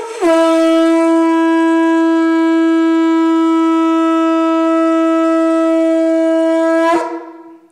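Conch-shell trumpet (atecocolli) blown in one long, steady, loud note of about seven seconds, with a brief wavering attack and a falling release at the end. It is sounded as a call to open the space.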